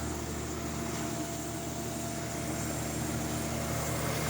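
Old Mitchell dehumidifier running with its case off, the refrigeration compressor and fan motor giving a steady low electrical hum with a rush of fan air.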